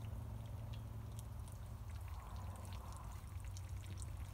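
Water pouring and trickling from the shot plastic water jugs, growing louder from about two seconds in, over a steady low rumble.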